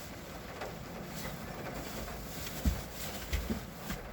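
Someone shifting about in a fully reclined car seat: a few dull thumps and bumps about two and a half seconds in and again near the end, with small clicks and rustles over a steady background hiss.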